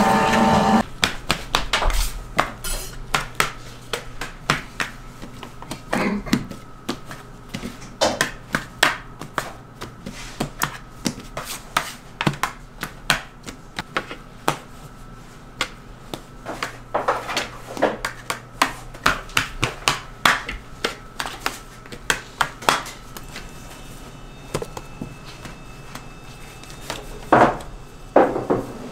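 Bakery kitchen prep sounds: irregular sharp clicks and knocks of utensils, trays and dishes being handled, over a faint steady hum. A stretch of music stops about a second in.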